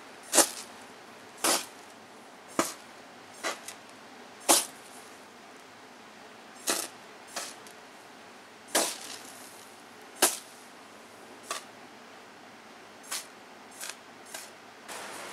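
Magnesium shavings burning out in a cast iron skillet, giving sharp, irregular pops and crackles about a second or more apart as the fire dies down.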